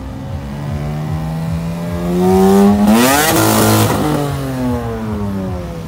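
Lexus IS saloon accelerating past at close range, its engine note climbing. It is loudest about three seconds in, with tyre hiss on the wet road, then drops in pitch as it moves away.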